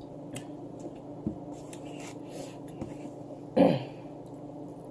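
A person clears their throat once, short and loud, about three and a half seconds in. Before it come a few faint clicks over a low steady hum.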